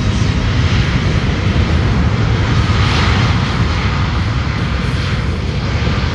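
Jet engines of a Japan Airlines Boeing 787-8, its GEnx turbofans, running as the airliner rolls along the runway past the listener. A loud, steady rush that swells to its peak about three seconds in.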